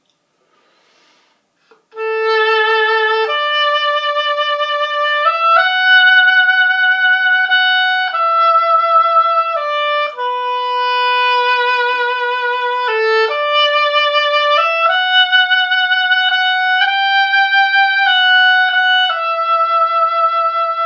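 Solo oboe playing a slow melody in ordinary classical oboe style, with vibrato and shaped dynamics. It comes in about two seconds in and moves through held notes of one to three seconds each.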